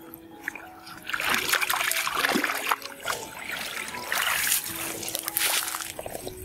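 Shallow ditch water splashing and sloshing as a bamboo plunge-basket fish trap is worked through it and lifted, in two loud spells: one starting about a second in, the other about four seconds in.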